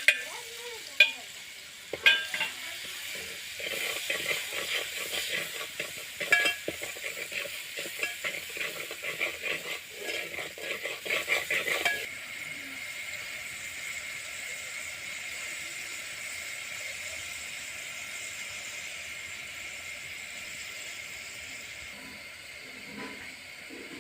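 Food frying in a pan: a metal spoon clinks against the pan, then stirs and scrapes rapidly until about halfway, when the stirring stops abruptly and only a steady sizzle remains.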